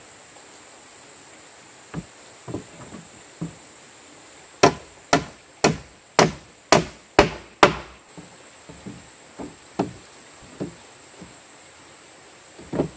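Hammer blows on a timber frame as wooden planks are nailed to an upright post: seven loud, sharp strikes about two a second in the middle, with lighter knocks of boards being handled before and after.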